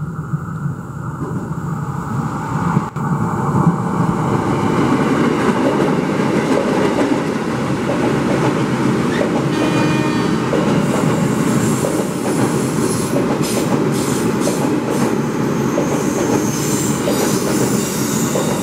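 KRL Commuter Line electric train approaching around a curve and passing close by, its wheels running over the rails in a steady rumble that grows louder over the first few seconds. A faint wheel squeal comes in briefly about halfway through, and hissing rises in the second half as the cars go by.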